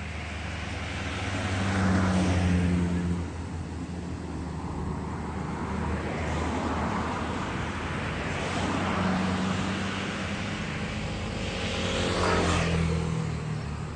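Kubota U50 mini excavator's diesel engine running steadily. The engine rises in several surges under hydraulic load as the machine digs and moves fill, the loudest near the start and near the end.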